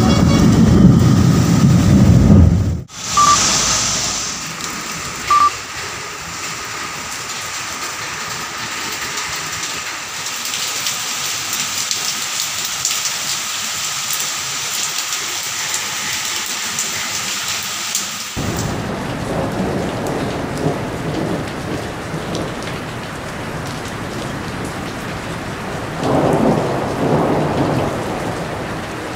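Thunder rumbling loudly over rain, cutting off sharply after about three seconds. Heavy rain then hisses steadily, with two short beeps about two seconds apart. After another cut, rain keeps falling with a louder swell near the end.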